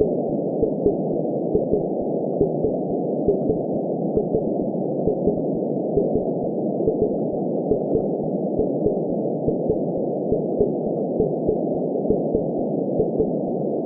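Heartbeat sound in a lub-dub rhythm: a steady run of short, low thumps over a continuous muffled whoosh, like sound heard inside a womb.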